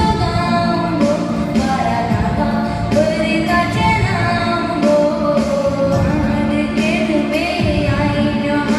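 A song with singing over an accompaniment with a steady beat.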